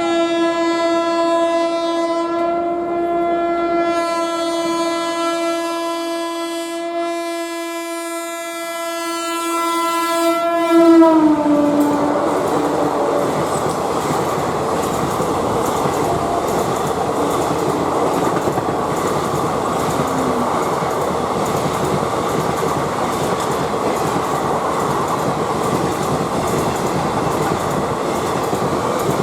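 WAP4 electric locomotive's horn sounding one long blast for about eleven seconds, dropping in pitch as the locomotive passes. The express then rushes past at speed, with steady wheel noise and a rapid clickety-clack over the rail joints.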